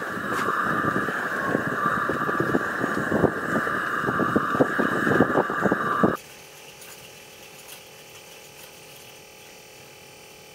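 Stainless-steel percolator coffee pot perking on a camp stove: a steady hiss with rapid bubbling pops. It cuts off suddenly about six seconds in, leaving quiet room tone.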